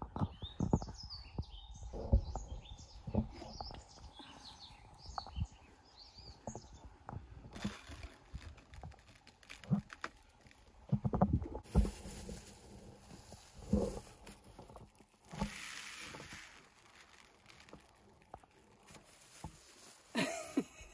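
Knocks and handling sounds of things being set down on a wooden table, with birds chirping in the background for the first several seconds. Then two spells of hissing noise, in the middle and later part, which fit water being poured into a plastic basin.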